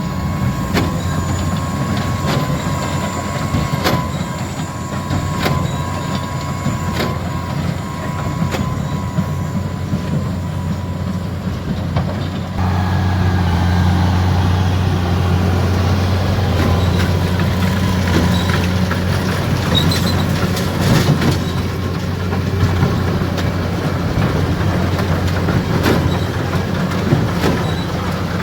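JCB tractor's engine pulling a Case IH 8585 large square baler through hay, a steady low drone with regular knocks from the working baler. It grows louder about halfway through.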